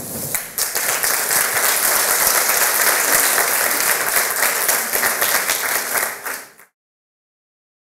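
Audience applauding, a dense patter of many hands clapping that cuts off abruptly about six and a half seconds in.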